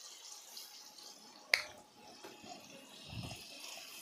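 Faint steady sizzle of onions, capsicum and sauces in a non-stick kadai on a low flame, with one sharp click about a second and a half in and soft spatula strokes near the end.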